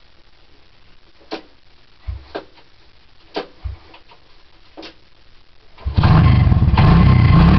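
1985 Honda ATC 200S three-wheeler's single-cylinder four-stroke engine on a cold start: several short mechanical clacks from the starting attempts, then about six seconds in the engine catches and runs loud and steady.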